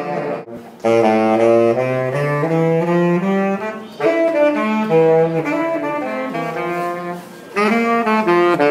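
Saxophone playing a melody live in three phrases of held and changing notes, the first starting about a second in, the next at about four seconds, and the last near the end.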